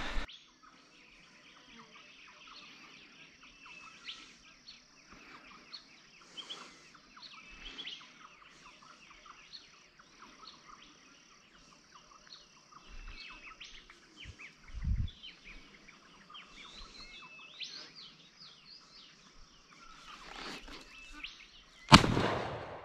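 Many birds calling and chirping at dawn, with a brief dull bump about midway. Near the end a single loud shotgun shot is fired at flying magpie geese.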